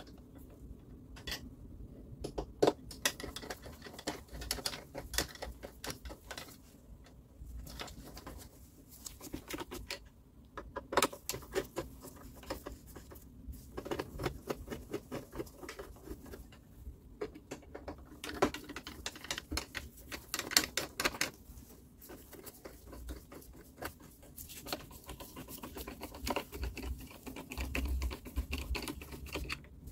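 Dense, irregular clicking and light tapping, several clicks a second, coming in uneven spells.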